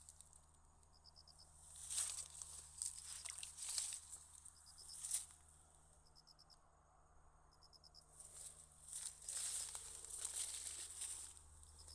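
Faint waterside ambience: an insect giving short pulsed chirps several times, over bursts of soft crackling and rustling with a few sharp clicks.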